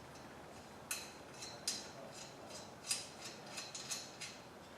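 Small sharp metal clicks and clinks, irregularly spaced, as steel parts of a motorcycle lift are handled and fitted together, a piece being locked into place.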